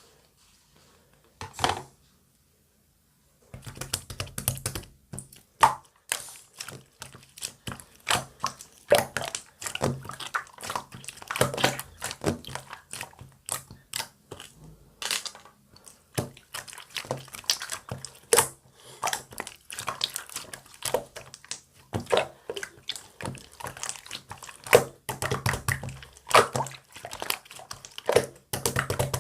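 Marbled slime being squished, pressed and stretched by hand, making many quick, irregular wet clicks and pops, starting about three and a half seconds in after a brief silence.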